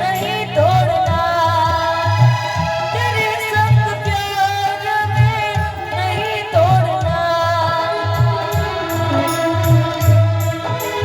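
Gujarati folk wedding song music: an ornamented, wavering melody over a steady, regular low drum beat.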